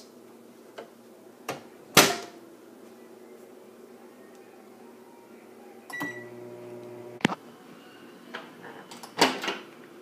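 Microwave oven handled. The door clunks shut about two seconds in. A short keypad beep about six seconds in is followed by about a second of the oven's hum, which cuts off with a sharp click. Another loud clunk comes near nine seconds.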